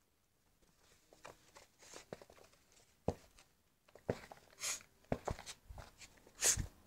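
Soft scattered scuffles, taps and rustles of a small dog playing on the floor, with two louder rustling bursts in the second half.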